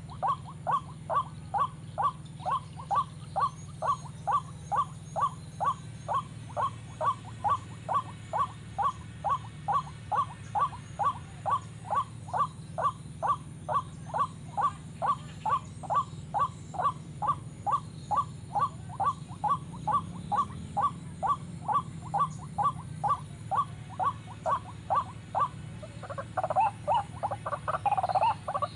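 White-breasted waterhen call repeated with machine-like regularity, about two calls a second, used as a lure to draw birds to the snares. Near the end the rhythm breaks into a short burst of denser, rougher calls.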